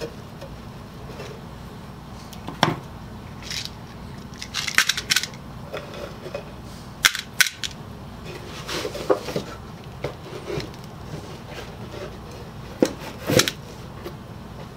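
Clatter of pallet-wood birdhouse boards being handled on a workbench, with loose screws clinking: irregular knocks and clicks, a quick cluster about five seconds in, two sharp knocks near seven seconds and another pair near the end.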